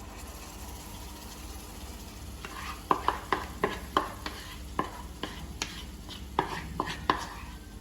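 Ground onion-tomato paste going into a kadai of sizzling spiced butter and being stirred. Over a faint sizzle, a spoon knocks and scrapes against the pan from about two and a half seconds in, about two to three sharp taps a second.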